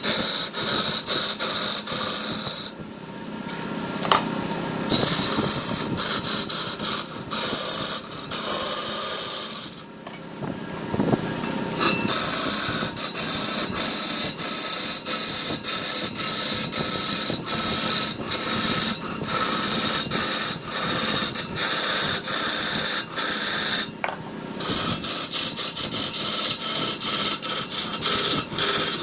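A turning tool cutting into redwood spinning on a wood lathe: a loud, high hissing scrape, broken again and again by short breaks as the tool comes off the wood.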